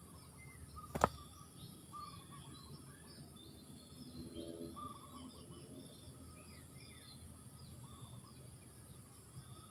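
Faint outdoor birdsong: scattered small-bird chirps, a single sharp click about a second in, and a faint low cooing call near the middle, typical of a spotted dove.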